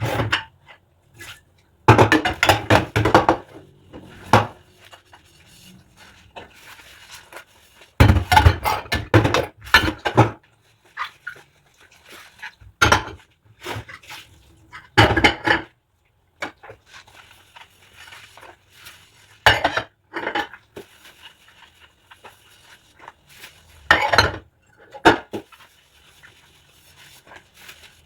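Dishes and cutlery clinking and knocking together as they are washed by hand, in several short clusters with quieter handling in between.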